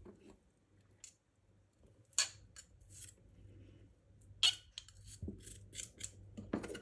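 Metal garlic press clicking and scraping as garlic cloves are crushed: a few faint, separate clicks, with more of them close together near the end.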